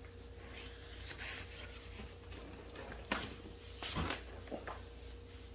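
Faint handling noise: a few soft clicks and rustles, the clearest about three and four seconds in, over a low steady hum.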